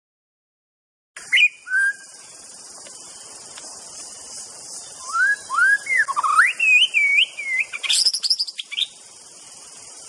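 White-rumped shama singing. Its clear whistled notes start about a second in, then a run of rising and falling whistles builds to a quick high flourish near the end, over a steady high hiss.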